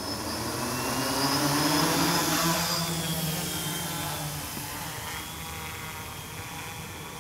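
Quadcopter drone's motors and propellers whirring at take-off while it carries quite a bit of payload. The pitch rises a little as it lifts off, and the sound grows louder over the first two to three seconds, then slowly fades as it climbs.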